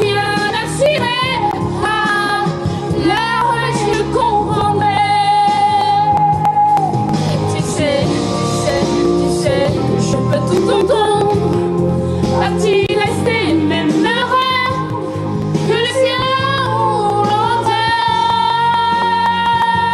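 A song playing: a singing voice holding long, wavering notes without clear words over steady instrumental accompaniment.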